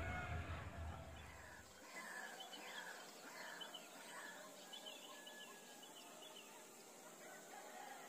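Faint bird calls: a run of short falling chirps, then quicker high notes. In the first two seconds a low rumble runs under them and cuts off abruptly.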